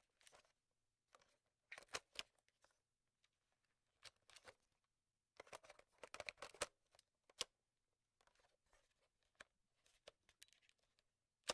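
Near silence broken by faint, scattered computer mouse clicks, a few at a time.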